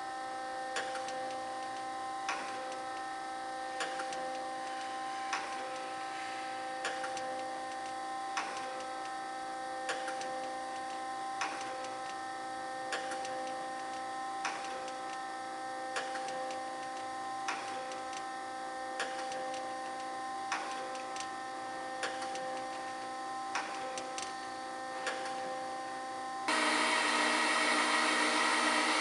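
DoAll G1 automatic hydraulic surface grinder running with a steady hum, its table clicking at each reversal about every one and a half seconds. Near the end a much louder, rougher running sound cuts in suddenly.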